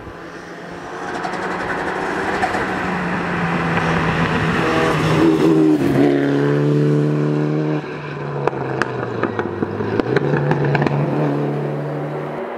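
Rally car on a gravel special stage, its engine at high revs as it approaches and passes close about six seconds in, then pulling away with the engine note dropping. Several sharp cracks come as it drives off.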